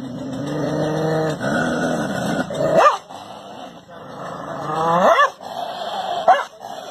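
A dog growling for about two seconds, then three short, sharp barks that rise in pitch, spaced a second or two apart.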